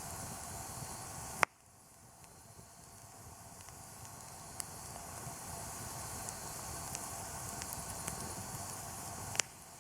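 Campfire crackling softly, with scattered small pops over a steady hiss. A sharp click about a second and a half in and another near the end, each followed by a sudden drop in the background that slowly builds back.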